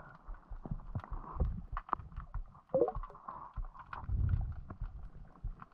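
Underwater ambience heard through a camera's waterproof housing: low surging rumbles of water moving against the housing, with many scattered clicks and crackles and a short squeak about halfway through.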